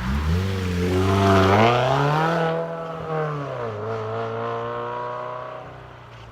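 A car engine revs: its pitch climbs for about a second and a half, holds, then drops back about three and a half seconds in. It then runs steady while fading out.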